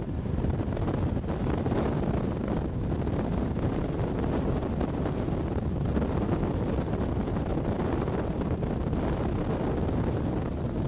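Dune buggy driving along a beach, its engine and tyres running under a steady rush of wind buffeting the microphone.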